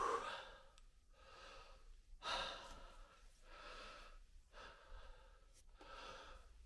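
A man breathing heavily in and out, a string of loud, noisy breaths about a second apart: he is out of breath after crawling through a tight tunnel.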